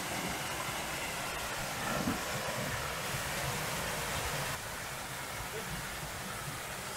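Steady rushing of a small waterfall pouring over a concrete dam wall into a creek pool. The rushing drops slightly in level about four and a half seconds in.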